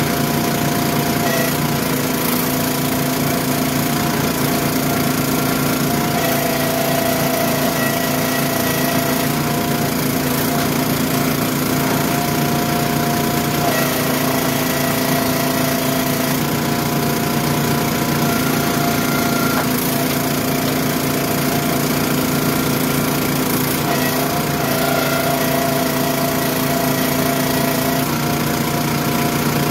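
Countyline hydraulic log splitter's engine running steadily. Every few seconds its note drops and holds for a few seconds, then recovers: the engine taking load as the ram pushes rounds through the wedge.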